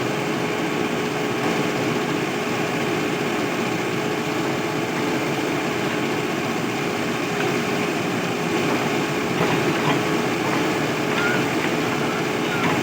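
Mahindra backhoe loader's diesel engine running at a steady pitch.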